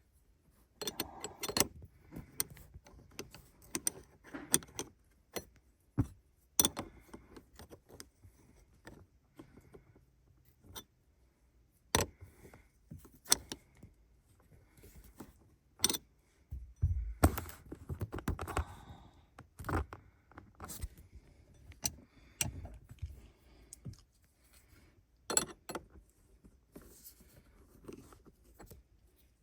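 Hands working at a car's gear shifter: irregular clicks, taps and small rattles as a new shift knob is tightened and the shifter parts are handled, with a heavier thump a little past halfway through.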